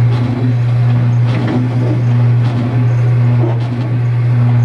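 Coin-operated jeep kiddie ride running: a loud, steady low hum with a higher tone that comes and goes in a repeating pattern.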